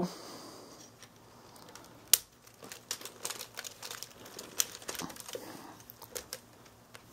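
LEGO Technic plastic parts clicking and rattling as they are handled and snapped together while the suspension is attached. One sharp click about two seconds in, then a run of smaller irregular clicks.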